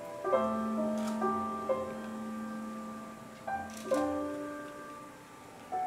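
Piano playing slow chords, each struck and left to ring and fade, in the closing bars of a musical-theatre song's accompaniment.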